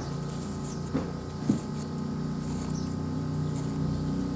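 A steady low motor drone, slowly growing louder, with a couple of soft clicks about a second in and again half a second later.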